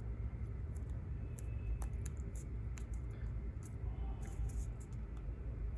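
A small square of paper being folded and creased by hand: faint, scattered crinkles and light ticks over a low steady hum.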